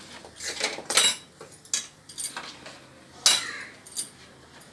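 Steel spatula clinking and scraping against small steel bowls and a wok as jaggery is scraped into the wok. It makes a handful of short, sharp metallic clinks, loudest about a second in and again a little after three seconds.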